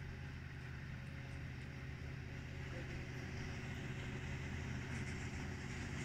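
Diesel freight locomotive engines running, a steady low drone that grows slightly louder toward the end.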